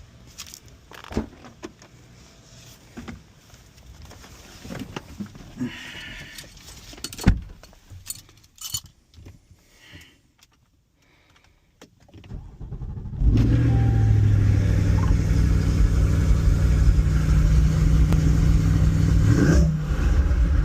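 A few scattered clicks and knocks, then a sports car's engine starting about thirteen seconds in and running loud and steady.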